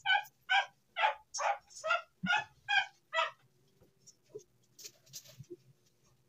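A dog giving a quick run of about eight short, high-pitched yips or whimpers, roughly two a second, that stop a little over three seconds in, followed by faint clicks.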